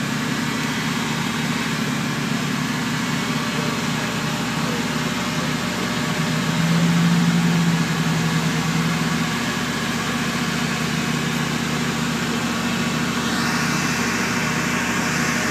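Car engine idling steadily, a little louder for a couple of seconds in the middle, with a hiss coming up near the end.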